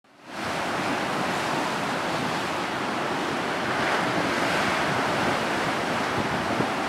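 Rough sea surf breaking on a rocky shore in strong southwesterly lebić wind, with gusts buffeting the microphone. A steady, dense noise that fades in over the first half second.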